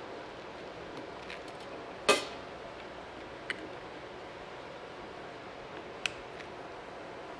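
Small metal parts and tools clicking against a carburetor being taken apart, with one sharp clink about two seconds in and two lighter ticks later, over a steady hiss.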